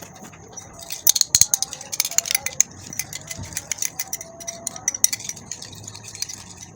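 Spoon clicking and scraping against a bowl while mixing, in quick irregular clicks that are densest about a second in and thin out after.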